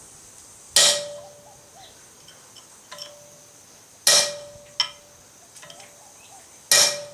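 Hand hammer striking an 8 mm blacksmith's punch into a hot steel flat-bar tong blank on the anvil to set the punch: three heavy blows a few seconds apart, each with a ringing metallic tone after it, and a few lighter taps between.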